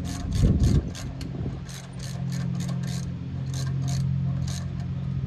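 Hand ratchet clicking in short runs, two to four clicks a second, as it winds out a bolt under the car; the clicks stop about four and a half seconds in. A low thump about half a second in, over a steady low hum.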